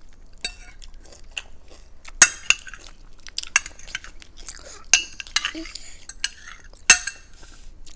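Metal forks clinking and scraping against glass bowls, a run of small clicks with three sharp clinks standing out, about two, five and seven seconds in.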